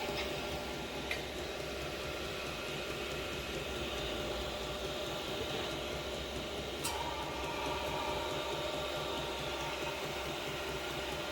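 Diesel and waste-oil air heater running through its start-up cycle: its blower fan gives a steady whine over a rapid, even low pulsing rumble, with one sharp click about seven seconds in. The heater is struggling to light, with combustion trying to catch on smoky waste-oil fuel.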